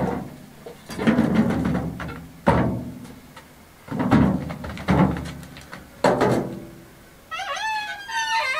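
A series of heavy clunks with a ringing metal tail, roughly one a second, from a metal wheelbarrow being wheeled over the stone slabs and set down. Near the end a high, warbling pitched sound begins.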